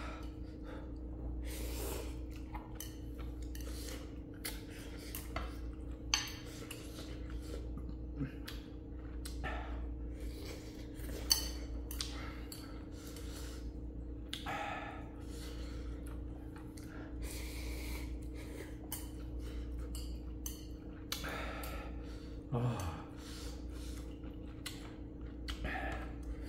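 A person eating hot instant ramen: short noisy slurps and breaths scattered throughout, with occasional clinks of utensils on the dish, over a steady low hum.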